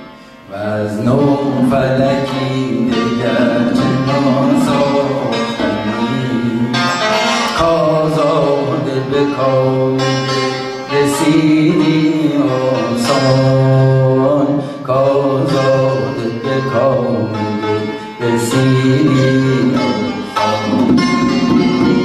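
Santur played with mallets in the Persian mode Segah, its struck strings ringing, under a man singing long held, slowly bending vocal notes in Persian classical āvāz. The music dips briefly at the very start, then carries on.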